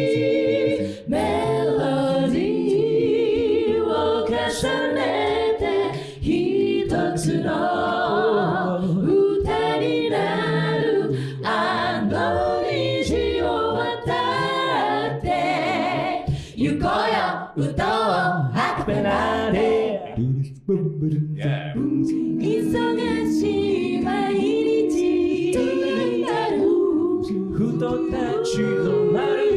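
A cappella group of men and women singing in close multi-part harmony, with sharp percussive hits among the voices.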